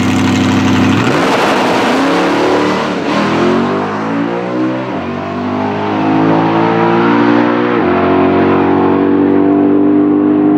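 Supercharged 5.0 L Super Cobra Jet Mustang V8 drag car held at steady revs on the starting line, then launching about a second in and accelerating hard down the strip at full throttle. The engine note climbs in pitch and drops back at each upshift, three times.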